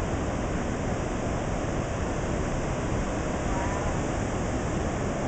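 Steady rushing of ocean surf breaking on the beach.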